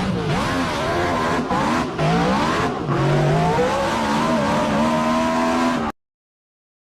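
Car engine revving hard, its pitch swinging up and down with a few short drops in sound, then cutting off abruptly near the end.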